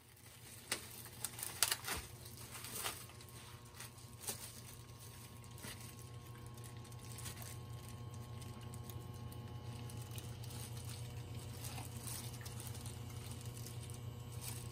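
Hands in thin plastic gloves handling raw beef slices and their plastic packaging: crinkles and light taps, most of them in the first few seconds, over a steady low hum.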